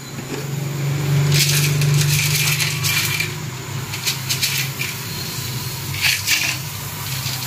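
Metal cookware being handled on a stovetop: a pot and wok knocked and scraped in several short clattering bursts, over a steady low hum.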